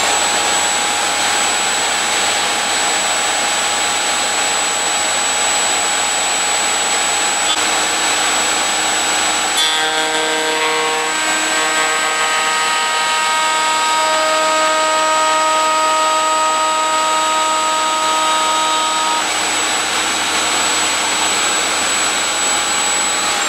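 Table-mounted router running at full speed with a steady high whine. From about ten seconds in, extra tones join it as the curved-top bit cuts a stopped finger-relief groove into the side of a white-painted MDF strip fed along the fence, and they drop away a few seconds before the end.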